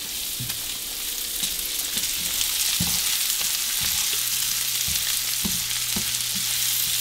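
Chopped bacon and onions sizzling in a frying pan with a steady hiss, while a utensil knocks and scrapes against the pan now and then as they are stirred.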